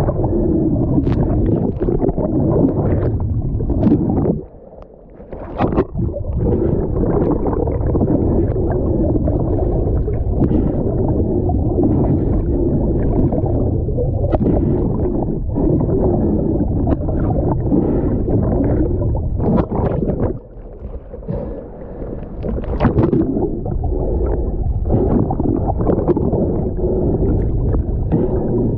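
Muffled water noise recorded underwater: a steady low rumble with bubbling and scattered clicks, dropping away briefly about four seconds in and again around twenty seconds in.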